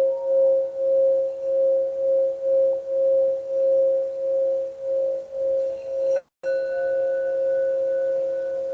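Singing bowl ringing with one steady tone that pulses in loudness about every half second. Just after six seconds the sound cuts out for a moment, then the tone returns steadier and slowly fades.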